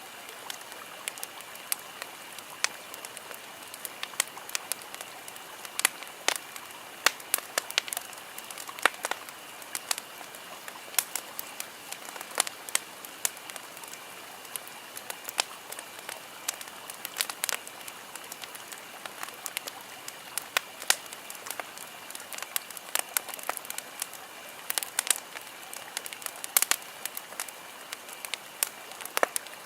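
Wood campfire crackling, with sharp, irregular pops and snaps over a steady soft hiss.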